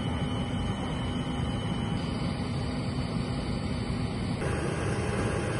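Steady rushing airfield noise with a faint engine hum through it, shifting a little about four seconds in.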